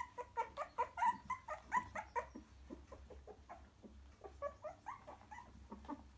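A litter of three-week-old cockapoo puppies squeaking and whimpering: many short, high calls overlapping, busiest in the first couple of seconds and thinning out after.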